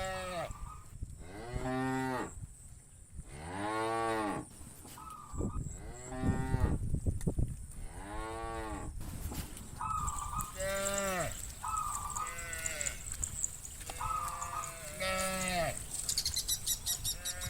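Herd of cows mooing, one drawn-out call after another every second or two, with shorter, higher calls in between.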